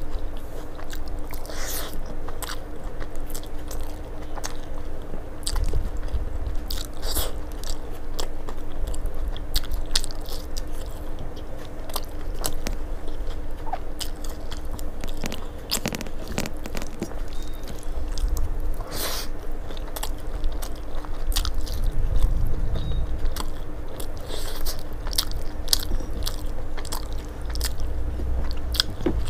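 Close-miked chewing and biting of a person eating rice and vegetable curries with her hand, with many small wet clicks and crunches from the mouth and from fingers mixing food on a steel plate. A faint steady hum runs underneath.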